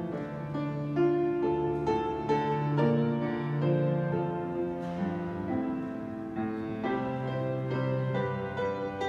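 Piano playing a slow introduction in sustained chords, note after note ringing out.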